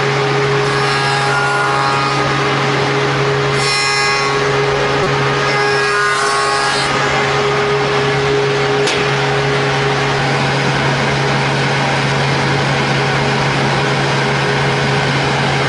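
CNC wood mortising machine running, a steady loud motor hum with a high whine from the cutter that fades after about seven seconds.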